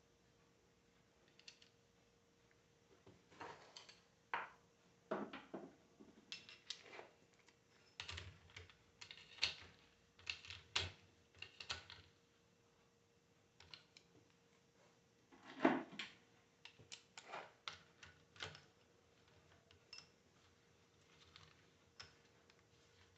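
Irregular light clicks and knocks of small metal parts and hand tools being handled while a car alternator is put back together, with a busier run of clicks in the middle and one louder knock later on.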